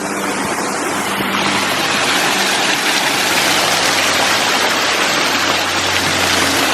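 Water of a waterfall cascade rushing close by, a steady loud wash that swells a little over the first couple of seconds. A faint steady low hum runs underneath.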